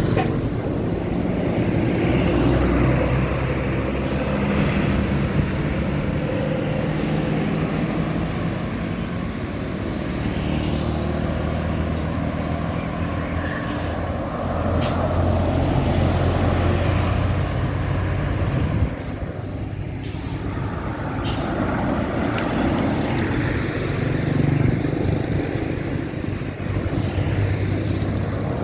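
Heavy diesel road vehicles, buses and trucks, passing on the road with engines running and tyre noise, their engine note rising and falling as they go by. A few short sharp noises cut in around the middle.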